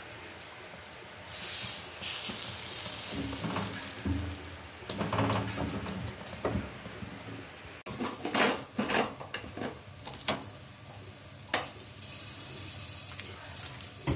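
Stuffed flatbreads sizzling on a hot griddle over a gas burner. About eight seconds in, this gives way to a metal spoon clicking and scraping as spinach filling is spread over rolled dough on a wooden board.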